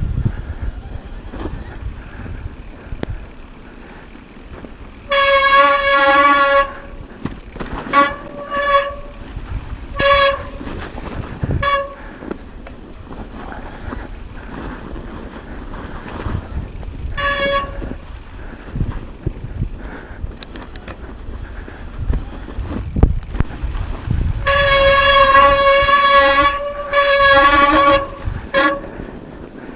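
Specialized Turbo Levo SL e-mountain bike's disc brakes squealing at one steady pitch each time they are applied. There is a long squeal about five seconds in, several short squeals after it, and another long squeal near the end, over a constant low trail rumble and a few knocks.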